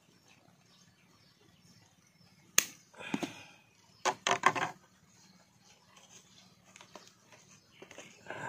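Handling noises: a sharp click about two and a half seconds in, then a short crackle and a quick cluster of clicks and crackles about a second later.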